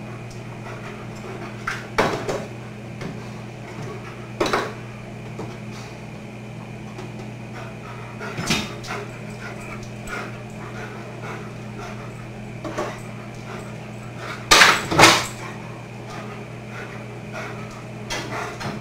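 Scattered knocks and clatters of refrigerator shelves, bins and their contents as a German Shepherd rummages in the open fridge, over a steady low hum. The loudest is a pair of bangs about three-quarters of the way through.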